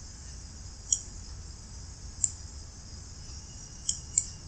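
Four single computer mouse clicks, the last two close together, over a steady high-pitched hiss.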